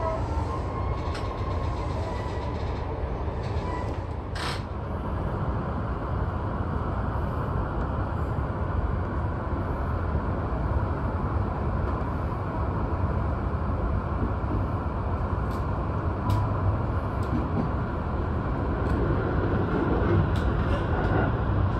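Sotetsu 12000 series electric train departing a station: steady rumble and running noise in the car, with a single sharp clunk about four seconds in. The sound slowly grows louder as the train picks up speed.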